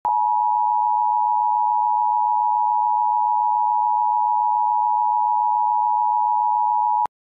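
Emergency Alert System attention signal: two steady tones close together, the 853 Hz and 960 Hz pair, sounded at once and held unchanged for about seven seconds, then cut off abruptly. It is the alarm that announces an emergency alert broadcast is about to be read.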